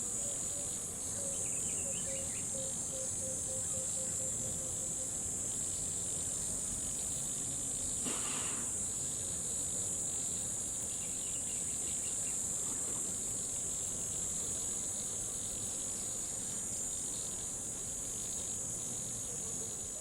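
Jungle riverside ambience: a dense, steady, high-pitched chorus of crickets and other insects. In the first few seconds a run of about a dozen short, evenly spaced low notes calls out, a few faint higher chirps come and go, and a brief rushing sound passes about eight seconds in.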